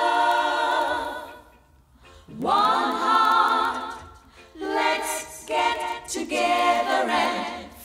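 A cappella vocal group singing held chords in close harmony, with no instruments. The singing breaks off twice for a moment, and the second phrase slides up into its chord.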